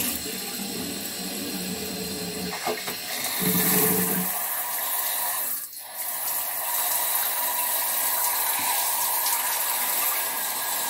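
Hot water running from a handheld shower head as a steady hiss of spray, with a humming tone over it for the first four seconds while the water is being set; the flow dips briefly about six seconds in, then carries on steadily.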